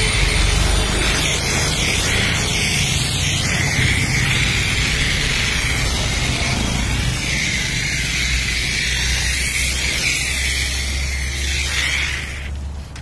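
High-pressure HTP pump washer spraying foam and water onto a car's body: a loud, steady hiss, with the pump's motor humming steadily underneath. The spray cuts off near the end, leaving the hum.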